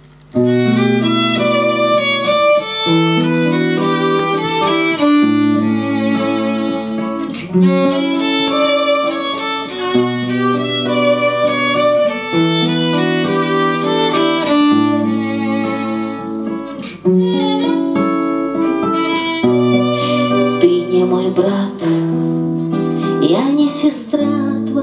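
Violin playing a slow melody in long held notes over acoustic guitar accompaniment, the instrumental introduction to a song.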